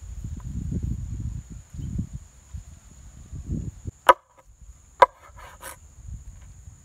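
A large broad-bladed knife chopping a raw chicken on a wooden cutting board: two sharp chops about a second apart, each with a brief ringing, followed by a few lighter taps. A low rumble comes before the chops.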